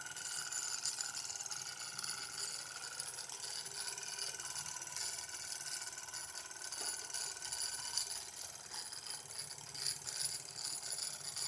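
Bowman M101 live steam engine running steadily on steam, its oscillating cylinder and gear reduction making a fast, even mechanical clatter.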